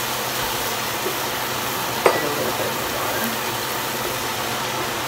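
Vegetables sizzling in a pan of water as they are stirred with a wooden spoon, over the steady noise of a loud stove fan. A sharp tap about two seconds in.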